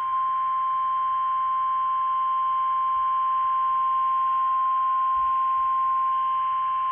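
Emergency Alert System warning tone: a single steady 1050 Hz NOAA Weather Radio alarm tone, held without a break, announcing a severe thunderstorm warning.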